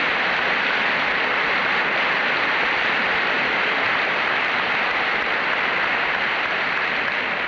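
Large audience applauding steadily; the clapping begins to die away as speech resumes.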